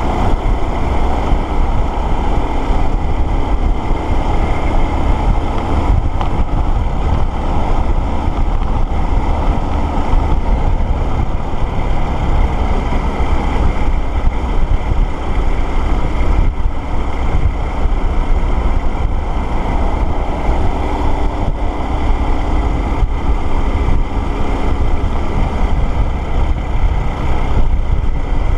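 Motorcycle riding at road speed: steady wind rush on the microphone over the running engine and tyre noise.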